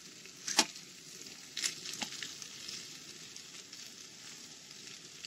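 Potato sticks sizzling in oil in a frying pan, while a metal spatula stirs them. The spatula knocks and scrapes on the pan in a few sharp clicks, the loudest about half a second in.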